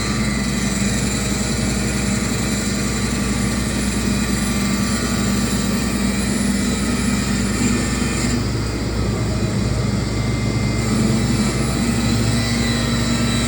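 CNC router running steadily, its spindle and cutter machining wood, with a change in the cut about eight seconds in.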